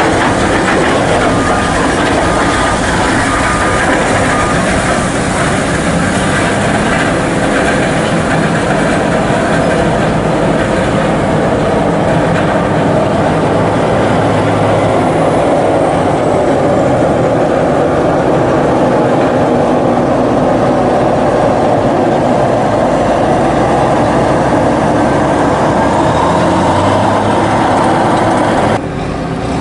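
Heavy coal-haul truck with a dump trailer driving on a wet dirt road: loud, steady engine and tyre noise. The level drops suddenly near the end.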